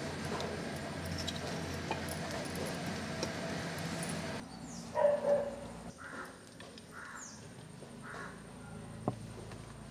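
A dog barks twice in quick succession about five seconds in, the loudest sound here. Faint bird calls follow, and before the barks there is a steady background hiss with a few small clicks.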